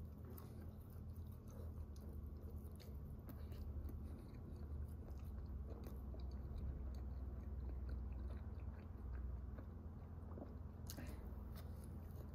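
A person chewing and biting mouthfuls of a soft cheeseburger slider, with many small wet mouth clicks, over a steady low hum.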